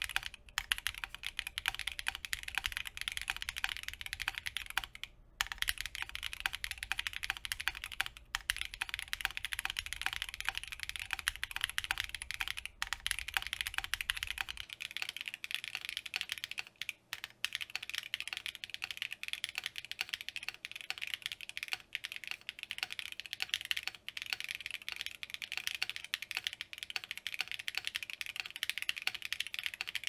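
Continuous fast typing on a QK100 mechanical keyboard with QK1 switches and double-shot PBT keycaps, built on a carbon fiber plate with no foams: a dense stream of key clacks, broken by a few brief pauses.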